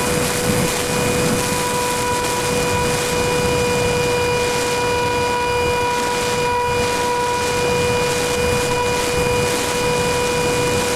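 Electric ducted-fan motor of an E-flite Habu RC jet whining at a steady pitch in flight, over a rushing wind noise on the onboard camera.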